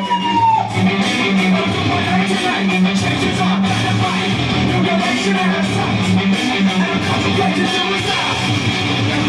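Loud party dance music with a steady beat.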